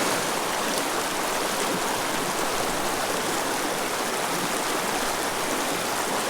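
Small creek flowing with a steady rush of water.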